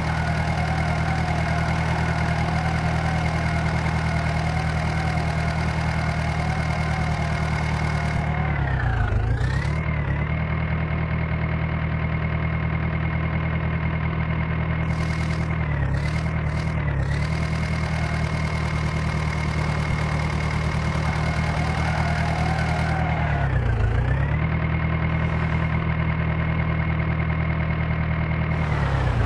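Diesel engine of heavy earth-moving equipment running steadily. Its speed drops and picks back up about four times: once near a third of the way in, twice briefly past halfway, and once near the end.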